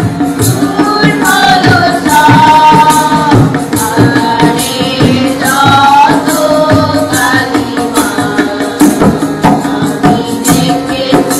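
Bengali Christian devotional song: a melody with long held notes over a steady percussion beat with jingling strokes.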